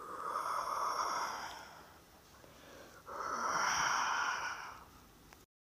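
Two long, breathy whooshes of a person's breath blown close to the microphone, one near the start and one about three seconds in.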